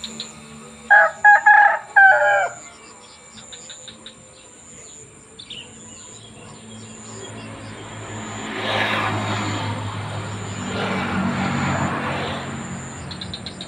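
Bangkok fighting rooster crowing once, about a second in: a loud crow of several broken syllables lasting about a second and a half. Later two vehicles pass on the road, each a swelling and fading rush of noise.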